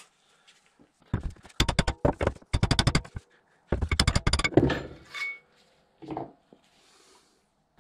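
Hammer tapping rapidly on the end of a driveshaft to knock a fitted part off it: two quick runs of sharp metal taps, then a couple of lighter knocks.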